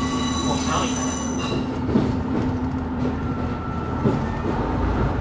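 Kiha E130 diesel railcar moving on a shunting run through the station yard: the wheels squeal in thin high tones for the first second and a half over the steady drone of the diesel engine, which fades about three seconds in, with sharp knocks about two and four seconds in.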